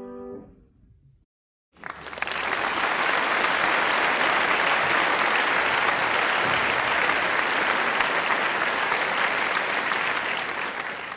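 A piano chord dies away, and after a second of silence a crowd applauds steadily for about ten seconds.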